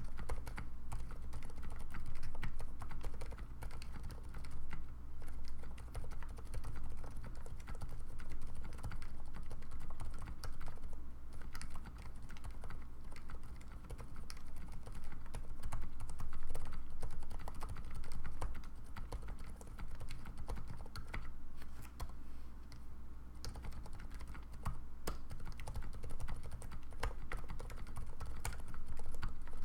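Typing on a TGR Jane mechanical keyboard with Cherry MX Silent switches in Zealios housings, lubed with Krytox 205/105: a continuous, uneven stream of keystrokes. A steady low hum runs underneath.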